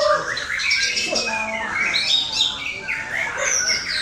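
Male white-rumped shama (murai batu) singing a rapid, varied song of gliding whistles and chirps without a break.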